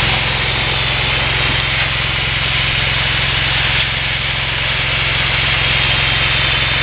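Pressure washer's engine running steadily, with the even hiss of the high-pressure water spray over it.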